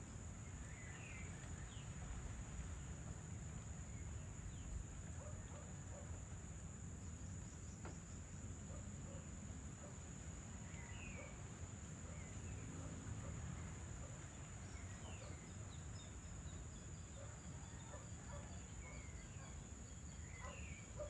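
Evening outdoor ambience: a steady high-pitched insect trill, with scattered short bird chirps and a low background rumble.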